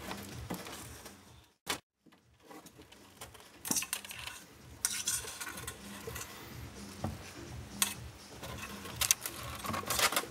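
Irregular clicks, taps and scratches of claws and a hand scuffling against a green iguana on its wooden perch, over a low rumble of handling noise. A sharp click just under two seconds in is followed by a brief silence.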